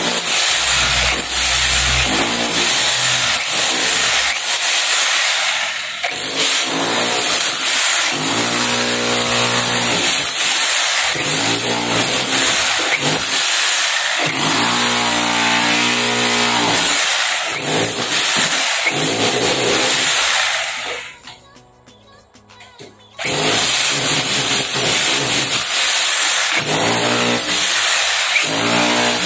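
INGCO 1500 W rotary hammer with a pointed chisel bit, hammering loudly and continuously as it chips concrete from a reinforced column. It stops for about two seconds roughly two-thirds of the way through, then starts hammering again.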